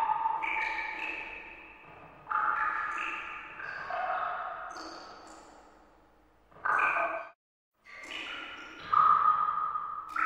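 Background music of bell-like notes that ring and fade. It cuts out completely for about half a second after seven seconds in, then starts again.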